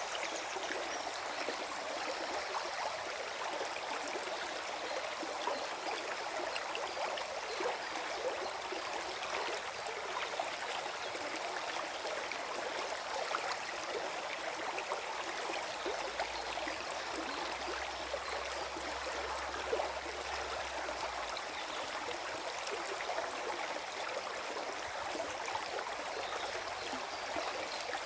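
Small forest stream flowing and gurgling over stones, a steady busy rush of water with fine bubbling detail.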